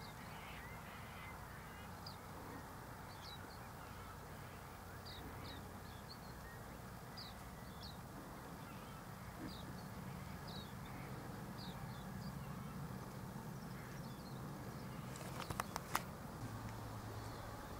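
Silvereyes giving short, thin, high chirps, one every second or so, while feeding, over a faint low steady hum. A few sharp clicks sound close together near the end.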